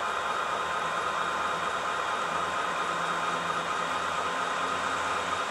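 Model CSX diesel locomotive's sound decoder playing a diesel engine idling through its small speaker: a steady, tinny hiss-and-hum with no change in speed.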